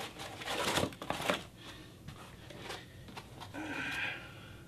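Packing material being handled on a bicycle's handlebar and fork: rustling of plastic and foam wrapping with several sharp clicks and knocks in the first second and a half, then quieter handling.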